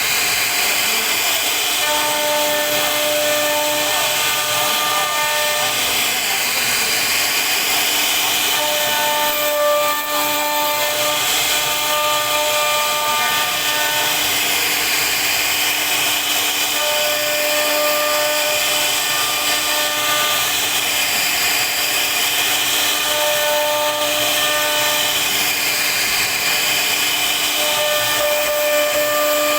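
CNC router spindle carving a design into a wooden board: a steady cutting hiss with a whine whose tones drop out and return every few seconds as the bit moves through the wood.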